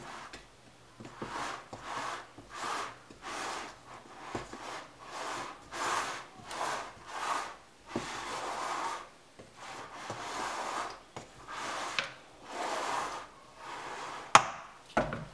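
Silicone spatula spreading and smoothing thick cake batter in a metal ring tin: soft, repeated scraping strokes about once a second. Near the end there is one sharp click, followed by a low thump.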